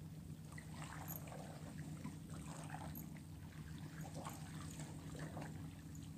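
Small sea waves lapping and trickling faintly among shoreline rocks, in irregular soft splashes, over a steady low hum.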